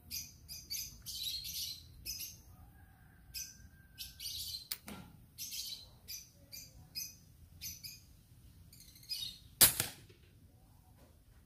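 Birds chirping again and again in short high calls. About ten seconds in comes a single sharp report, the loudest sound: a shot from a GCMAG air rifle with a Lothar Walther polygon barrel firing a pellet.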